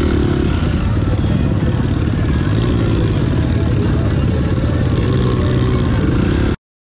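Side-by-side off-road vehicle's engine running steadily, with a fast even pulse in the low end; the sound cuts off abruptly near the end.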